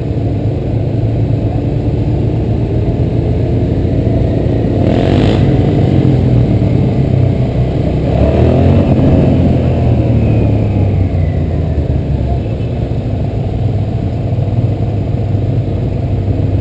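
Motorcycle engine running at cruising speed with heavy wind and road noise, under way. A brief whoosh comes about five seconds in, and around eight to nine seconds in it swells, with engine pitches gliding up and down.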